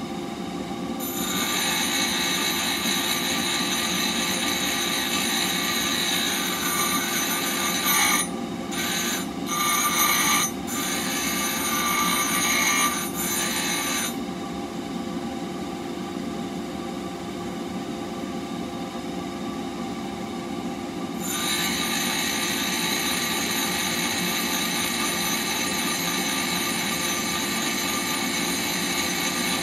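Bench grinder running steadily while a steel blade for a woodturning tool is held against its white grinding wheel, giving a high grinding noise over the motor's hum. The grinding breaks off briefly a few times, stops for about seven seconds midway leaving only the motor running, then starts again.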